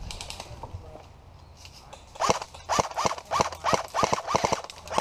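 An airsoft rifle fired in quick semi-automatic shots, about nine in two and a half seconds, starting about two seconds in. Each shot has a sharp crack with a short rising-and-falling motor whine. Faint rustling of undergrowth comes before the shots.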